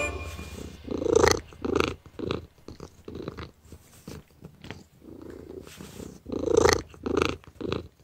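Domestic cat purring loudly close by, in two runs of three pulses about half a second apart with a softer purr between them, while it wrestles a catnip toy.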